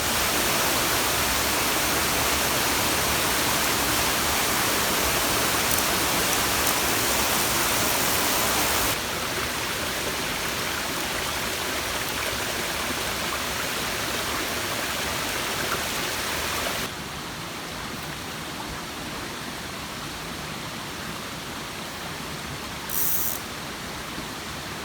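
Waterfall on a creek rushing steadily, a dense even noise that drops a step in loudness about nine seconds in and again around seventeen seconds. A brief hiss comes near the end.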